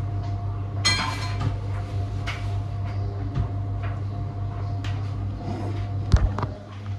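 Kitchen handling sounds: dishes, glassware and cupboards knocked and clinked as a drink is prepared, with a bright ringing clink about a second in and a heavier knock near the end, over a steady low hum.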